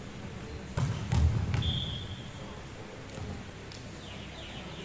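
Volleyball being played: a quick run of sharp smacks as the ball is struck by players' arms and hands about a second in, followed by a brief sneaker squeak on the wooden floor, with a few fainter knocks later. The hits ring out in the large hall.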